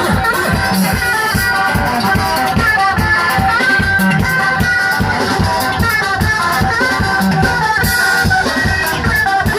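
Music: a steady, fast drum beat under a repeating melody.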